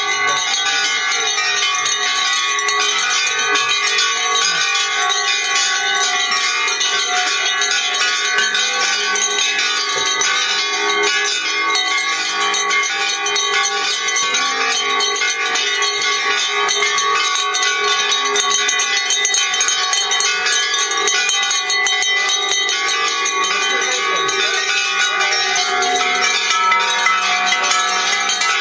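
Many bells at many different pitches rung together at once by a group of people. They make a dense, continuous wash of overlapping ringing tones with no pauses.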